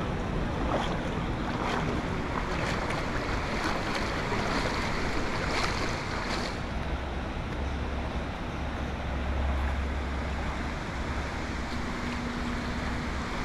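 Steady rush of river water with splashes about once a second as people wade across it, and a low wind rumble on the microphone midway through.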